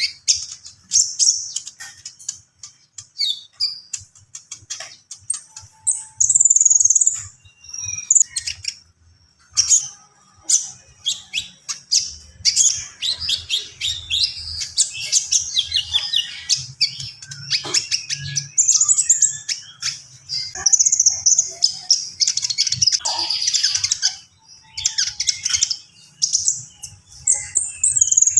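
Konin songbird singing almost without pause: a fast, varied run of high chirps, trills and sliding notes, full of imitated phrases, with short breaks now and then.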